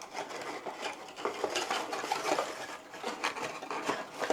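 Rustling and small clicks and taps of packaging and hardware being handled as the NZXT control hub is taken out of its box.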